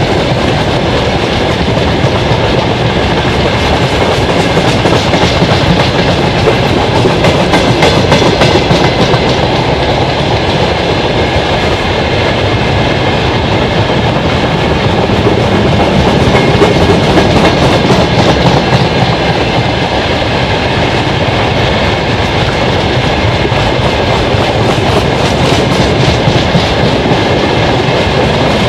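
Freight wagons of a long broad-gauge freight train rolling past close by: a steady, loud rumble with the clickety-clack of wheels over the rail joints.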